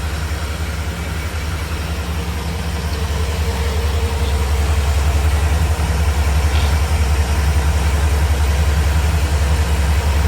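1989 Chevrolet Caprice's 350 small-block V8 idling steadily, left running to test a newly installed alternator; it gets a little louder about four seconds in.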